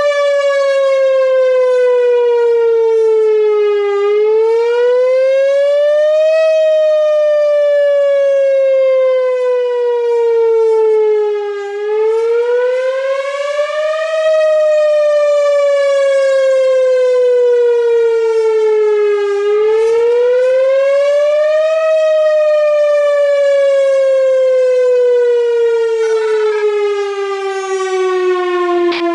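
Whelen 4004 electronic outdoor warning siren sounding its wail tone: a slow rise of about two and a half seconds, then a longer fall of about five seconds, repeating about every eight seconds.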